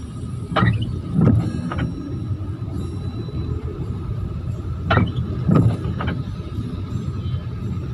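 Windshield wipers making a two-stroke sweep, twice: about half a second in and again about five seconds in, each sweep a pair of swishing thumps. Under them runs the steady low rumble of a car idling and creeping in a traffic jam, heard from inside the cabin.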